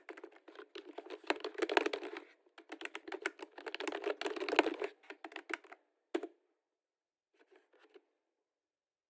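Computer keyboard being typed on in fast runs of keystrokes, with a brief pause about two and a half seconds in. The typing stops after about six seconds, and a few soft taps follow near the end.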